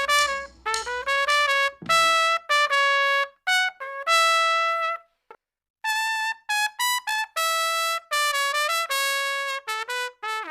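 Solo trumpet playing a lively melody of short, quick notes as closing music, with a brief pause about halfway through.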